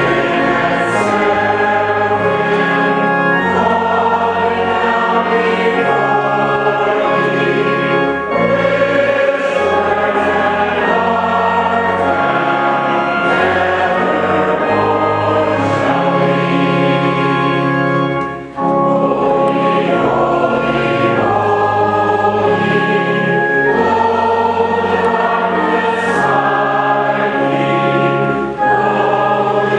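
Congregation singing a hymn together over held, slowly changing low notes, with a short break about two-thirds of the way through.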